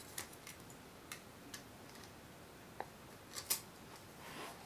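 A handful of faint, irregular clicks and taps as small screws and fiberglass quadcopter frame plates are handled and fitted together, the sharpest about three and a half seconds in.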